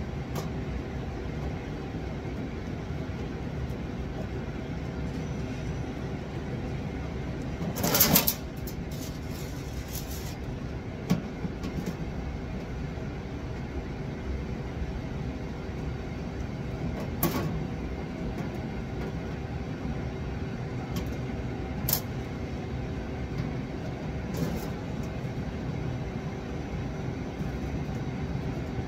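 Screwdriver work on the stainless-steel panel of a Bunn commercial coffee brewer: scattered metal clicks and clinks as screws are turned out and set down, with a longer clatter about eight seconds in. A steady hum runs underneath.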